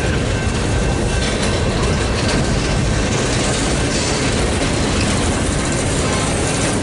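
Freight train cars, gondolas and tank cars, rolling past close by: a steady rumble of steel wheels on the rails.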